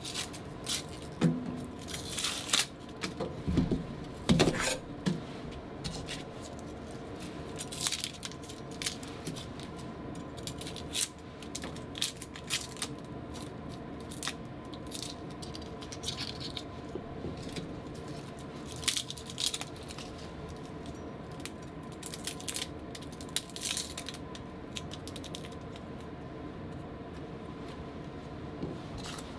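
Scattered light clicks and taps of a kitchen knife and fingers peeling garlic cloves over a wooden cutting board, busiest in the first few seconds, over a faint steady hum.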